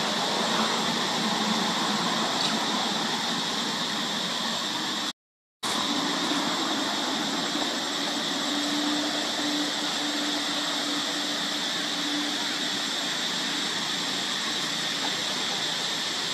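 Steady outdoor background hiss with a faint high whine, cut by a half-second dropout about five seconds in.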